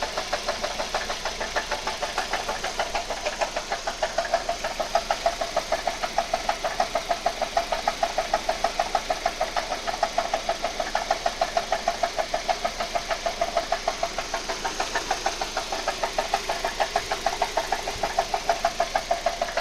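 1.8T turbocharged four-cylinder engine running with a steady, rapid knock, about six sharp ticks a second. It is an unexplained engine knock that the owner is trying to trace.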